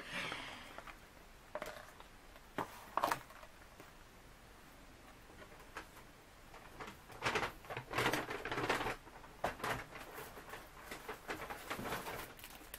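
Thin plastic sheets and cellophane packaging rustling and crinkling as they are handled, in short irregular bursts with a few light taps, busiest in the second half.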